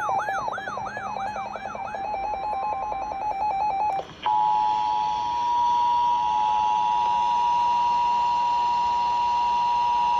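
Synthesized electronic tones, rising sweeps two or three times a second over a fast pulsing beep, thin to the pulsing beep alone and cut off about four seconds in. After a brief break the steady two-tone Emergency Alert System attention signal starts and holds over a light radio hiss.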